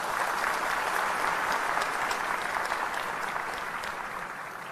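Large seated audience applauding: many hands clapping together, steady at first and slowly dying down toward the end.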